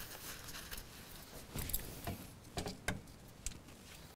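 Hand-work noise at the driveshaft seal housing of a Yamaha outboard lower unit: a cloth rubbing and scraping as the seal bore is wiped clean of corrosion, with a handful of light clicks and knocks in the second half.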